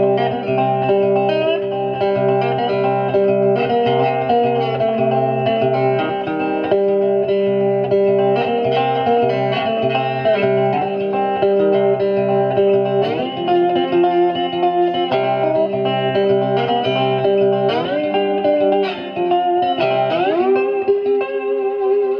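Background music led by guitar, with a steady low pulse and sliding notes near the end.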